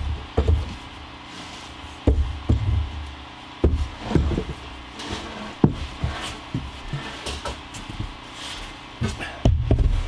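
Irregular wooden knocks and clunks of a 2x lumber board being handled and fitted against wooden closet framing.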